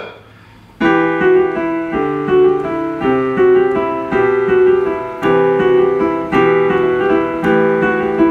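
Roland HP-3000S digital piano played with both hands: chords begin about a second in and are struck roughly once a second, each one ringing into the next.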